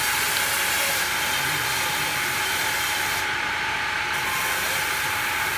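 Wood-cutting machine running steadily with a constant hissing whine and a steady high hum; the hiss eases briefly a little past halfway.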